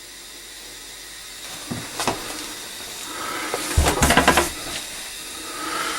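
Electric water heater's heating element sizzling in the tank once power is back on, a steady hiss that slowly grows louder; the element is heating, a good sign. A few sharp clicks and knocks, loudest about four seconds in.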